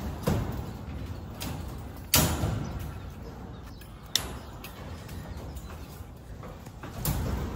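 Steel rebar being handled on a slab: irregular knocks and clanks with short scraping tails, about four in all, the loudest about two seconds in.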